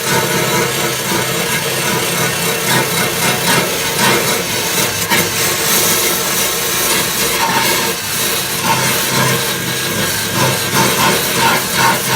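Electric drill spinning a wire wheel against a steel fuel tank, a steady whir with scraping as it scrubs the metal around the pinholes.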